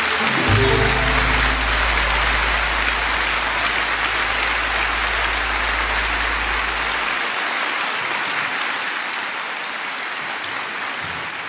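Audience applauding steadily at the end of a song. A deep held note sounds under the clapping for the first several seconds and fades out about seven seconds in.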